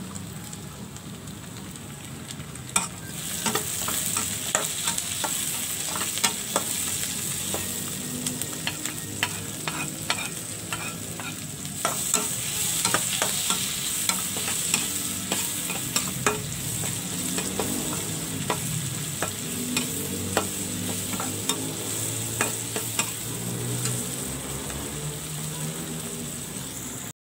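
Chopped onion, chilies and tomato sizzling in hot oil in a wok while a spatula stirs them, with frequent sharp clicks and scrapes of the spatula against the pan. The sizzle grows louder about three seconds in.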